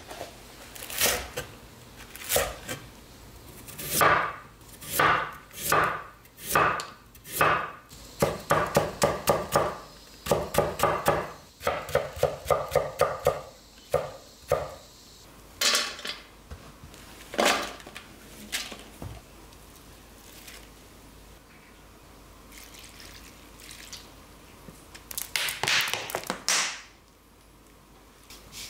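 Chef's knife chopping green onions and carrots on a wooden cutting board. The blade knocks on the board in single strokes at first, then in quick runs of several chops a second. A few scattered knocks follow, then a short clatter near the end.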